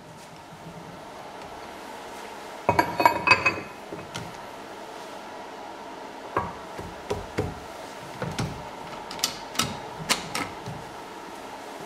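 Steel parts and tools clanking and knocking against the cast-iron drill press table as a steel bar is set in place and fixed. There is a cluster of sharp, ringing metal clanks about three seconds in, then scattered knocks and taps in the second half.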